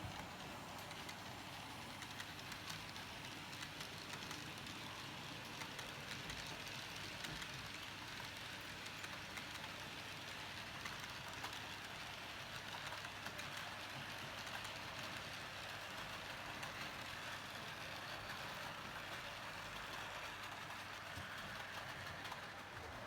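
H0-scale model train running along the track: a steady rolling rattle of wheels on the rails, with faint fine clicks.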